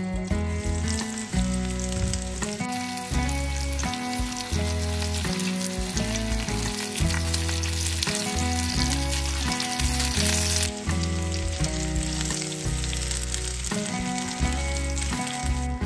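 Chicken meatballs sizzling in hot oil in a frying pan, a dense steady hiss that weakens sharply about two-thirds of the way through. Background music with a bass line plays under it.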